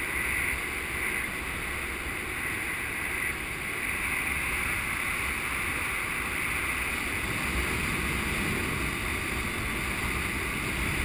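Steady rush of wind over the camera's microphone during a paraglider flight, with a low rumble beneath it.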